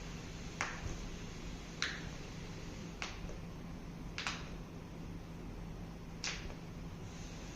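Five sharp clicks, about a second apart, with a longer pause before the last.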